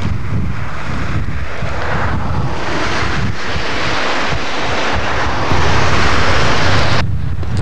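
Wind buffeting a camcorder microphone: a rough, steady rumble and hiss that swells from about two seconds in, grows louder still, then cuts off abruptly near the end.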